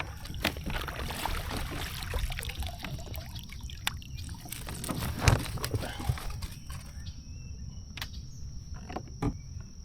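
Water splashing and dripping around a kayak as a hooked bass is handled, with scattered sharp knocks and clicks of tackle and hull over a steady low rumble.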